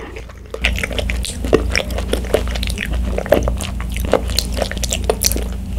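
Close-miked chewing of bubble tea tapioca pearls: wet, squishy mouth sounds with many short irregular sticky clicks.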